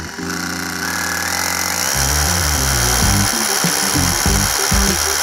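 DeWalt DCH072 Xtreme 12V brushless SDS-Plus rotary hammer drilling into concrete with a 5/8-inch bit: a steady hammering grind and motor whine that builds up over the first second. Background music plays along with it.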